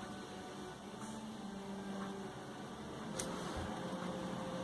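Low steady background hum with faint steady tones, and one brief click about three seconds in.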